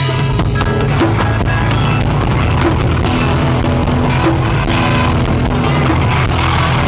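Loud, driving rock-style music with a heavy drum beat and a strong bass line.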